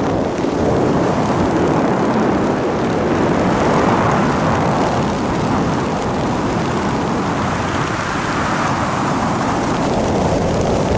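Steady, loud wind rushing over the camera microphone as the skydivers fall through the air.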